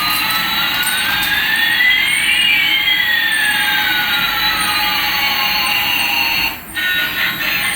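Electronic jet-engine sound effect from a toy airliner: a steady hiss with two whistling tones, one rising and one falling, crossing midway. It cuts off about six and a half seconds in.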